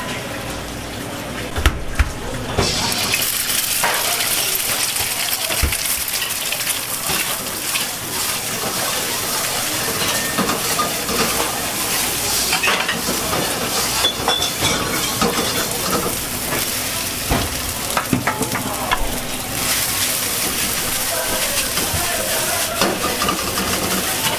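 Egg and rice stir-frying in a hot wok, sizzling steadily while a metal ladle scrapes and clanks against the pan. The sizzle starts suddenly about two and a half seconds in, after a couple of knocks.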